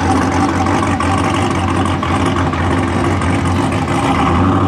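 Pickup truck engine idling steadily with a constant low rumble.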